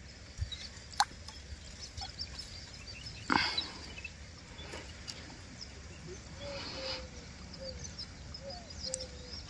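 Faint outdoor ambience with scattered bird chirps and calls, including a run of short low calls in the second half. A sharp click sounds about a second in and a louder short knock about three and a half seconds in.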